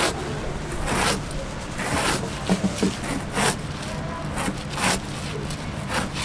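A knife cutting down through a block of oranda, puffed grain bound with syrup. Each stroke is a short crunchy crackle, repeated about once a second.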